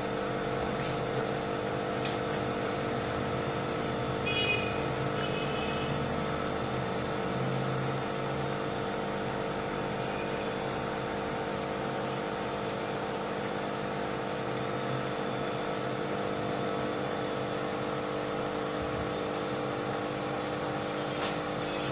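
Steady mechanical hum with several held tones, broken by a few faint clicks.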